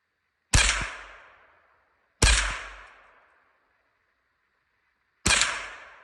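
Ruger 10/22 .22 rifle fired three times at an irregular pace, the second shot close after the first and the third about three seconds later. Each report dies away over about a second.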